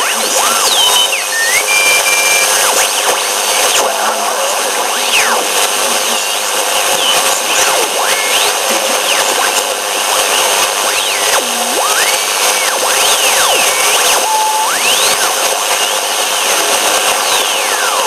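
Shortwave band noise from a Delica ham-band converter feeding an LA1600 IC receiver: steady hiss with whistling heterodyne tones that slide up and down in pitch and pause as the dial is tuned across signals.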